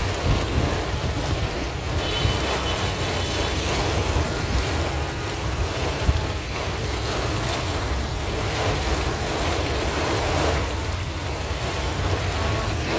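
Wind buffeting the phone's microphone: a steady low rush with no clear bursts, and one brief thump about six seconds in.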